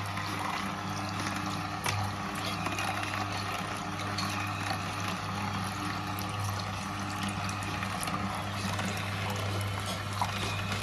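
Slow juicer running with a steady low motor hum as it presses the ingredients, with juice trickling out and a few small crackles.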